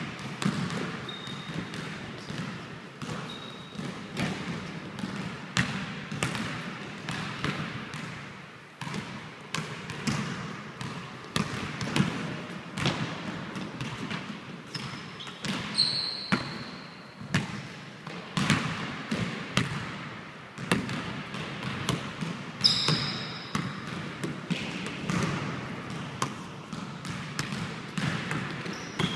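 Basketball dribbled on a hardwood gym floor: repeated, irregular bounces, with a few short high sneaker squeaks.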